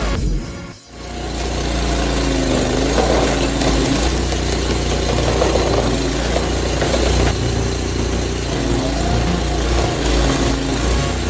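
Heavy machine's diesel engine running under load, with a steady low hum and a pitch that rises and falls. It starts just under a second in, after a short drop in sound.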